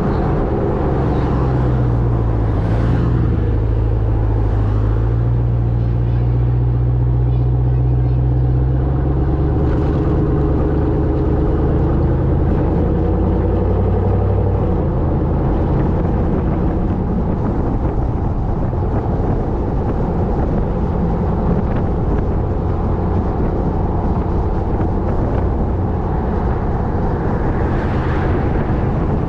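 Ram 1500 TRX's supercharged 6.2-litre V8 exhaust droning steadily under way, heard from the side of the moving truck with road and wind noise. The deep engine tone eases about halfway through.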